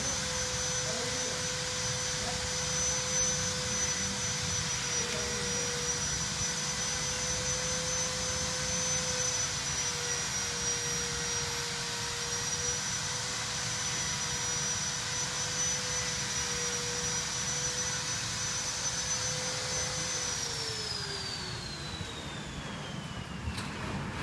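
An electric motor running with a steady whine over a hiss of air. About 20 seconds in it is switched off, and the whine falls in pitch as it winds down.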